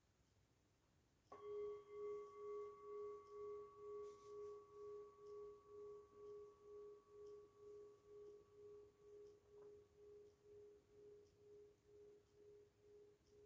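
A brass singing bowl struck once about a second in. It rings with a low tone and fainter higher overtones, pulsing in an even wobble about twice a second as it slowly fades.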